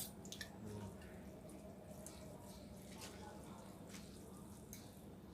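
Faint liquid dripping, with a few small sharp clicks about the first half-second.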